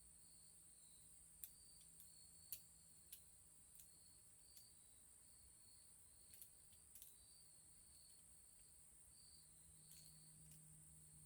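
Near silence: faint insects chirping in a steady repeating pattern, with a scattering of faint sharp clicks, about a dozen, mostly in the first half.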